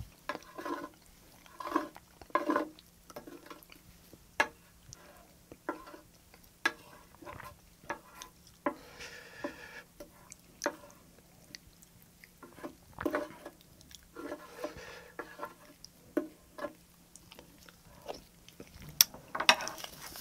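Wooden spoon scraping and clicking against a plate as leftover tomato pasta sauce is gathered up, mixed with close-miked chewing and mouth smacks. It is a string of short, irregular clicks and smacks.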